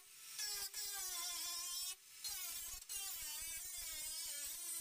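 Cordless angle grinder cutting through spot welds on a steel car fender: a high motor whine whose pitch wavers and dips as the disc bites into the metal, broken off briefly about two seconds in and again just under three seconds in.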